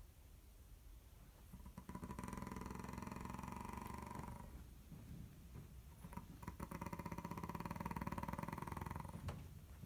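A sleeping person snoring: two long snores, each about three seconds, with a quieter breath between them.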